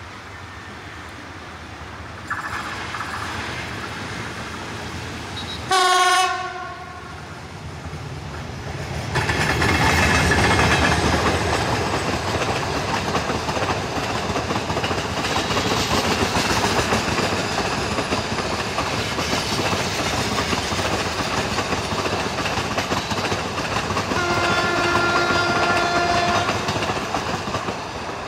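Metre-gauge passenger train hauled by an EMD diesel locomotive: a short, loud horn blast about six seconds in, then the steady rumble and clickety-clack of coach wheels passing over the rail joints. A second, longer and fainter horn blast comes a few seconds before the end.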